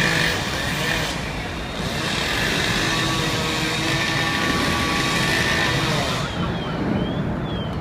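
Fire apparatus engines running at the fire scene, a steady low drone with a few short high chirps near the end.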